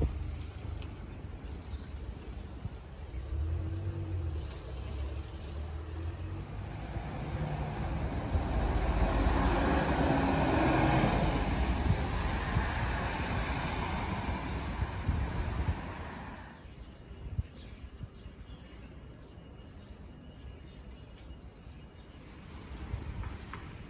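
Road traffic: a motor vehicle's engine rumble and road noise swell over several seconds, then drop away abruptly about two-thirds of the way through, leaving a quieter street background.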